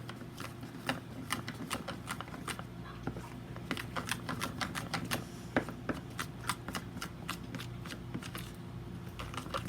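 Stirring a thick shampoo-and-cornstarch slime mixture in a bowl: the utensil clicks and taps against the bowl, several irregular clicks a second.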